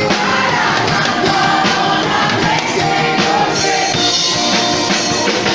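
Rock music with singing, drums and guitar.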